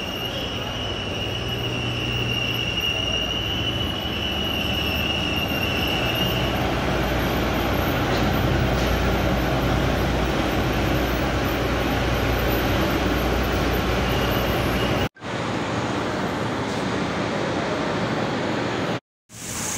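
Steady loud machinery noise of a jaggery plant: the sugarcane crusher's electric motor and gearbox running, and cane juice boiling in open pans. A steady high whine sounds for about the first six seconds, and the sound cuts out briefly twice near the end.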